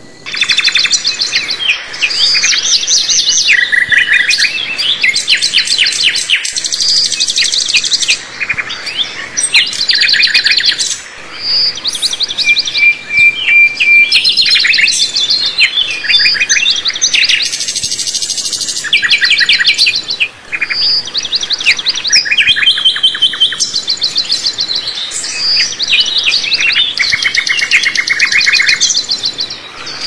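Small songbirds chirping and singing in fast high trills, several voices overlapping with only brief pauses. About halfway through there is one short, steady whistled note.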